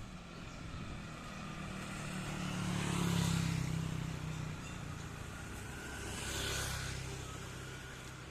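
Engine noise passing by: a low hum with a hiss that swells and fades twice, loudest about three seconds in and again, less strongly, about six and a half seconds in.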